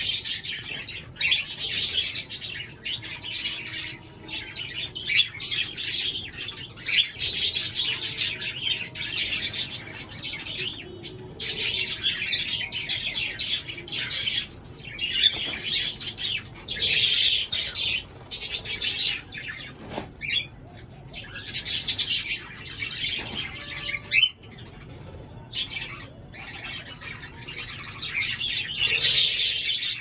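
Caged pet birds chirping and squawking in a continuous, busy chatter, with short pauses here and there.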